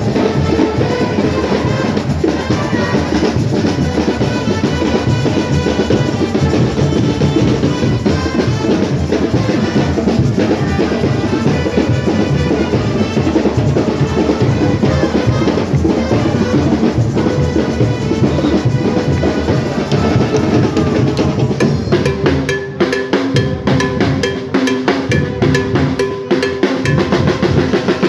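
Street parade band playing: marching snare and bass drums beating a fast, dense rhythm, with saxophones and other horns playing over it. Near the end the individual drum hits come to the front.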